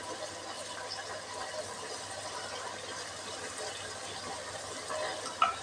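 Steady hiss with one short, sharp clink a little over five seconds in.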